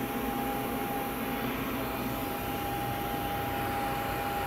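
Steady mechanical hum and hiss with a thin, even whine held throughout, the background running noise of shop machinery at rest between cuts.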